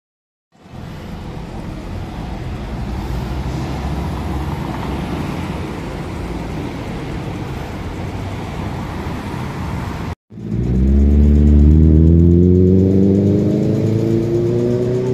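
Steady city street noise with a low rumble, then, after a short break about ten seconds in, a louder motor vehicle engine accelerating, its pitch rising steadily.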